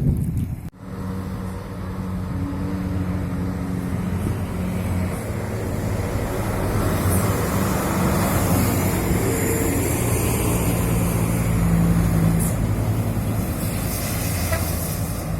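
A tour bus's engine running and passing close by, swelling to its loudest around the middle and easing off near the end, over road traffic noise.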